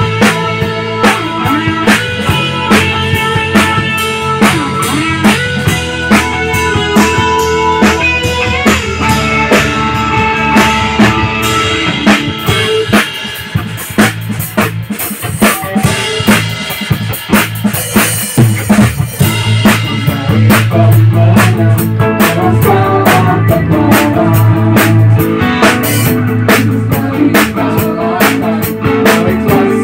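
Live band playing a worship song: electric guitar, keyboard and drum kit with a steady beat, getting louder about twenty seconds in.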